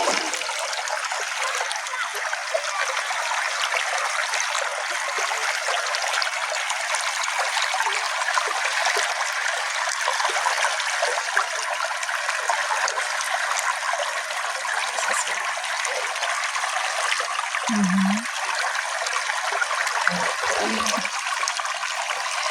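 Small stream flowing steadily, with a few low gurgles near the end.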